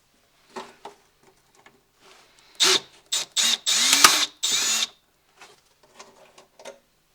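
Cordless drill run in five quick bursts, its motor pitch sliding up and down as the trigger is squeezed, with light tool-handling clicks before and after.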